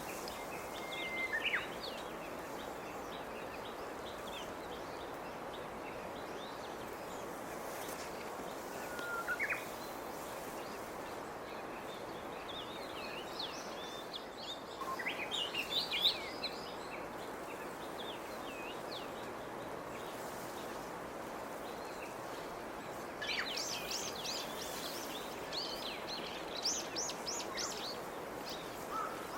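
Songbirds calling over a steady outdoor background hiss: a held whistle that drops at its end, a rising whistle, then clusters of quick high chirps, the busiest run near the end.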